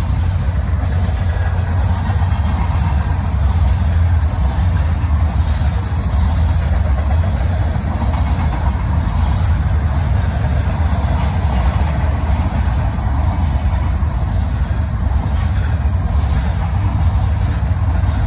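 Freight train cars (covered hoppers and tank cars) rolling past at a grade crossing: a steady, heavy rumble of steel wheels on the rails.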